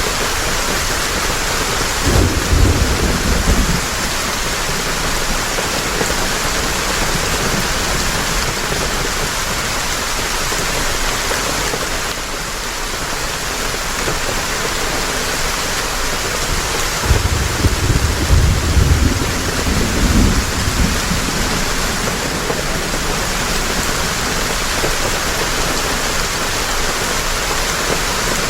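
Heavy rain falling steadily, with rolling thunder rumbling twice, once a couple of seconds in and again for several seconds past the middle.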